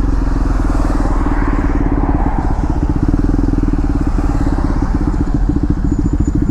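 KTM Duke 390's single-cylinder engine running at low revs through a full-system aftermarket exhaust, a loud, steady exhaust beat with no revving.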